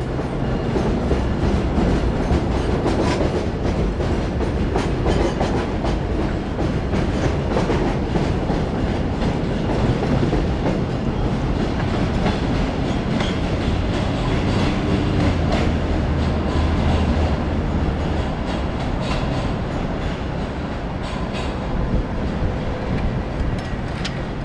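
Subway work train of ballast hopper cars and flatcars rolling past on elevated track, its steel wheels clacking over the rail joints in a steady run of clicks.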